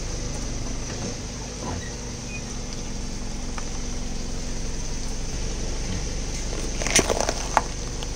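A car engine idles steadily while its tyre rolls slowly over a bell pepper. About seven seconds in comes a short cluster of sharp crunching cracks, then one more crack half a second later, as the pepper breaks under the tyre.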